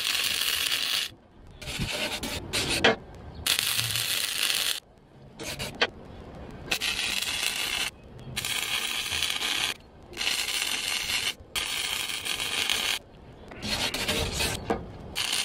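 Wire-feed welder arc crackling in short bursts of a second or so, about ten in a row with brief pauses between them. It is stitch-welding a steel chain hook onto thin loader-bucket metal at turned-down power, to avoid burning a hole through it.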